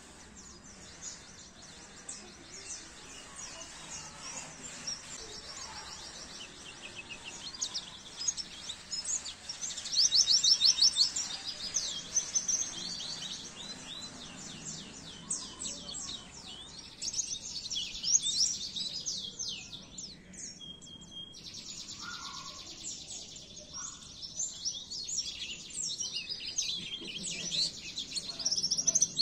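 White-eye (pleci) singing: a long run of rapid high twittering chirps and fast trills, loudest about ten seconds in and again in the last third.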